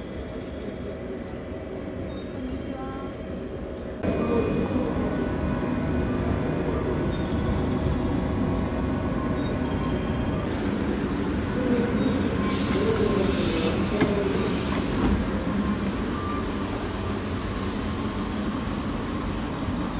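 Train noise heard from aboard the West Express Ginga, a converted JR West 117-series electric train: a steady rumble and hum. It is quieter at first and louder from about four seconds in.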